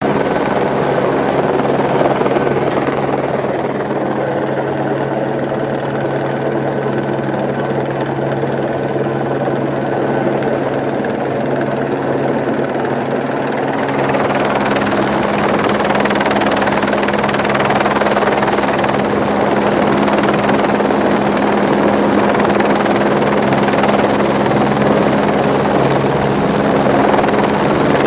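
Helicopter hovering low overhead: steady rotor beat and engine drone, growing somewhat louder and fuller about halfway through.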